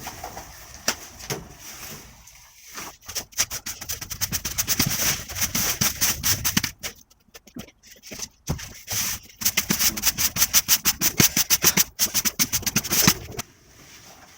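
Quick, rapid scraping strokes across the greenhouse floor, about eight to ten a second, in two long runs with a short pause between them, as the floor is cleared.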